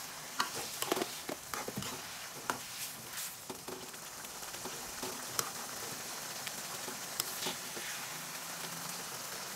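Thick sambal tempoyak of fish and fermented durian simmering in a wok as it cooks down to thicken: a faint, steady sizzle with scattered small pops and ticks.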